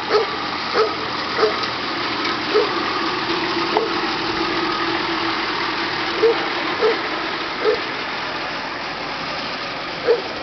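A dog barking in short single barks, about every two-thirds of a second at first and then more spread out, over the steady running of an off-road SUV's engine as it drives slowly past.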